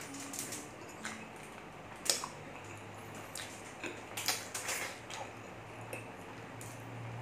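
Close-miked chewing and wet lip-smacking as pork ribs are eaten by hand, with scattered sharp smacks and clicks. The loudest comes about two seconds in, and a cluster follows a couple of seconds later.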